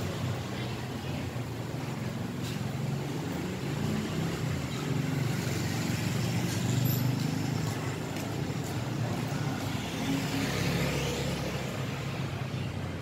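Urban street traffic: motor vehicle engines running with a steady low rumble.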